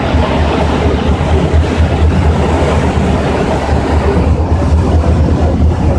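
Passenger ferry under way: a steady low engine drone with an even rushing hiss over it.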